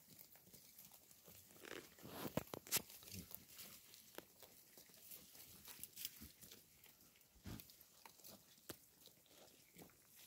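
Goats grazing at close range, tearing off short grass and chewing it: an irregular run of crunching and ripping sounds, loudest about two to three seconds in.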